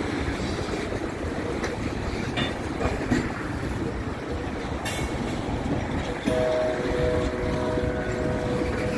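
Loaded tank cars of a long freight train rolling past on jointed track, a steady rumble of wheels on rail with occasional sharp clicks and clanks. About six seconds in, a steady two-note tone joins and the sound gets louder.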